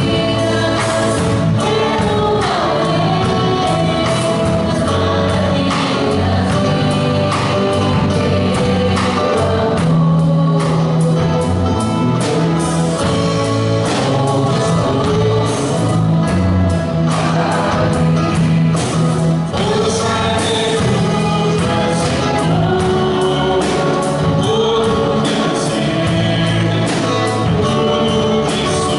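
Live gospel worship song: male and female singers leading over a band of drums, guitars and keyboard, with a steady beat.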